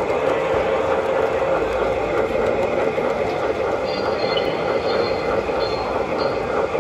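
MTH Premier O-scale PRR Q-2 4-4-6-4 model steam locomotive running, its Proto-Sound 2 sound system playing steady, fast steam chuffing through its speaker over the rolling of its wheels on the track.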